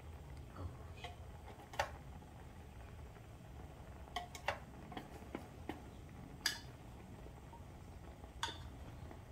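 Chopsticks clinking against a stainless steel pot and bowl while noodles are lifted from one to the other: about eight sharp, irregular clinks, the loudest about two seconds in and again midway, over a low steady rumble.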